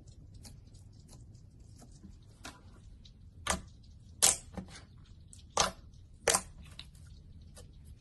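Slime being handled, making irregular small sticky clicks and pops, with four louder pops in the middle.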